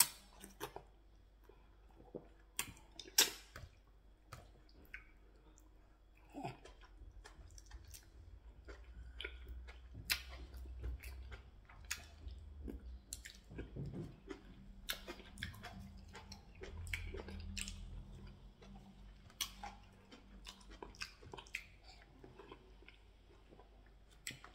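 Close-up chewing of pounded yam dipped in slimy ogbono soup with meat, eaten by hand: moist mastication with sharp lip smacks and mouth clicks scattered through, busiest and loudest in the middle stretch.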